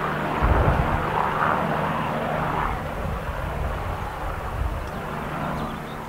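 An aircraft engine droning steadily, slowly fading away.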